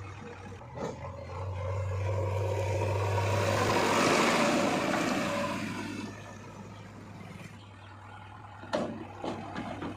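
Heavy diesel engine running steadily, building in level to a peak about four seconds in, then easing off. A sharp knock comes near the end, followed by a few lighter ones.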